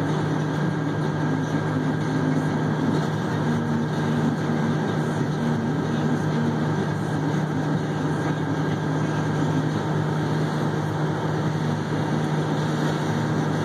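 Haul truck's diesel engine idling steadily, heard from inside the cab.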